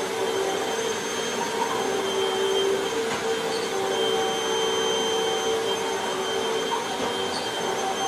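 Hoover WindTunnel Rewind upright vacuum cleaner running steadily while pushed back and forth over a rug, a continuous motor whine with a few steady tones.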